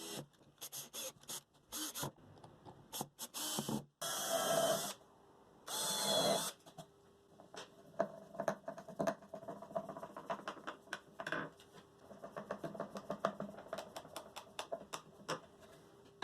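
Workshop handling sounds: a run of light taps and clicks of tools and wood pieces, with two brief scraping bursts about four and six seconds in.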